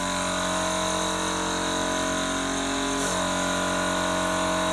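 Small air compressor running steadily at one even pitch, pumping air into a polyethylene test pipe to build up pressure toward about 7 bar.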